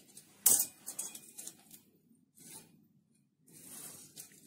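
Steel tape measure being handled and pulled out against a steel disc: a sharp click about half a second in, a few lighter clicks after it, then soft sliding rasps of the blade.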